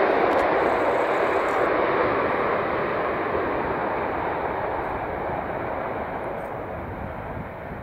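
Airbus A330 jet engines during the landing rollout: a steady rushing jet noise that slowly fades as the airliner slows.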